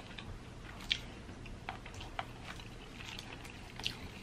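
Fingers breaking into the crust of a KFC chicken pot pie: faint soft crackles and a few sharp little ticks, the sharpest about a second in and near the end.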